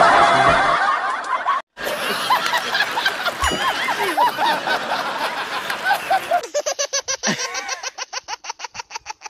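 A woman laughing and giggling in several joined-up bursts, with a brief gap about two seconds in. Near the end the laughter turns into a rapid run of short giggles, about seven a second.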